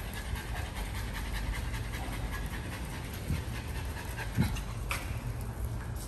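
Small dog panting quickly and steadily with its tongue out, worn out by the heat.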